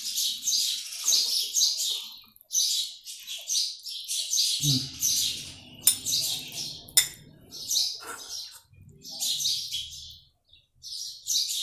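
Sparrows chirping in a busy, rapid chatter, with two sharp clicks near the middle.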